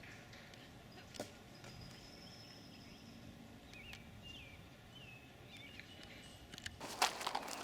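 Birds chirping in short, repeated down-slurred calls over a steady outdoor background. A single click comes about a second in, and loud crackling rustle, like footsteps or handling, starts about seven seconds in.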